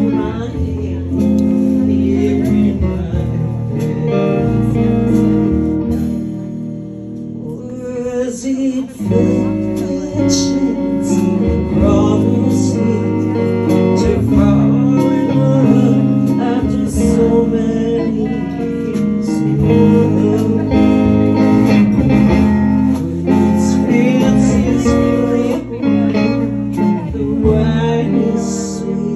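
Live band music: electric guitar, electric bass and drums playing together.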